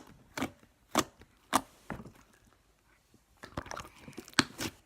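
Slime being handled and squished: a few sharp separate clicks and pops in the first two seconds, then a quick flurry of small clicks near the end.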